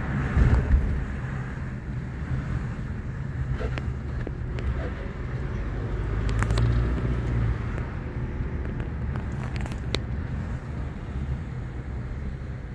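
Car interior while driving slowly on a city street: a steady low engine and tyre rumble, with a thump about half a second in.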